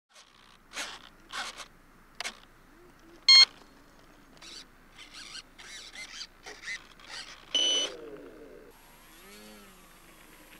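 Irregular short clicks and scrapes, a loud electronic beep about three seconds in and a second, buzzier beep later, then a steady hiss with a faint falling tone near the end.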